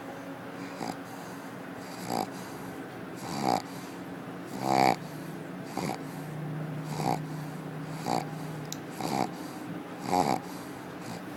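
A pug snoring in her sleep: short snores about once a second, the loudest two coming a few seconds in.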